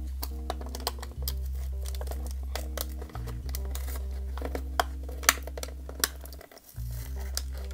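Thin clear-plastic blister pack crinkling and clicking as fingers pry it open from its card backing, with a few sharper cracks of the plastic past the middle. Background music with sustained low notes plays underneath.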